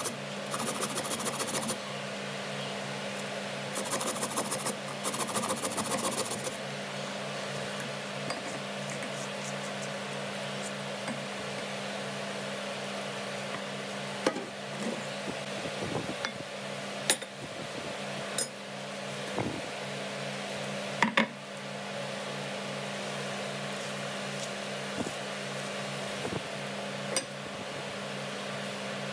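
Carrot rasped on a flat metal grater in short bursts of strokes during the first six seconds or so, then scattered taps and clicks as shredded carrot and lettuce are handled in a glass bowl. A steady hum runs underneath.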